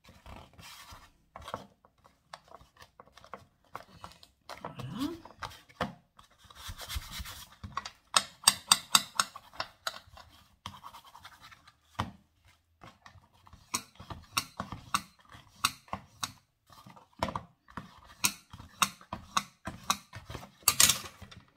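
Kraft-paper cards and small cardboard boxes being handled and pressed together for gluing: scratchy rubbing of paper on paper and card, with a string of light taps and clicks.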